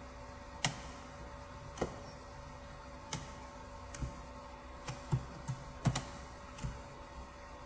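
Irregular, scattered clicks of a computer mouse and keyboard, about ten over several seconds, with several close together near the middle, over a faint steady electrical hum.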